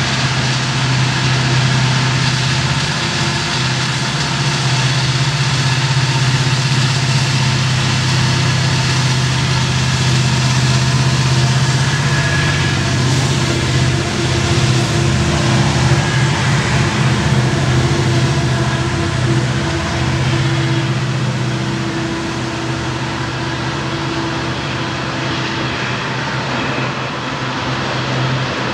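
Norfolk Southern EMD SD70ACe diesel locomotives, led by the Wabash heritage unit NS 1070, working hard up a grade with a deep, steady engine note. After about twenty seconds the engine sound weakens and gives way to the tank cars rolling past.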